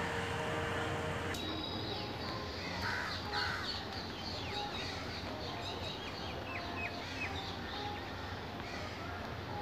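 Crows cawing over steady outdoor background noise, with short high bird calls through the middle.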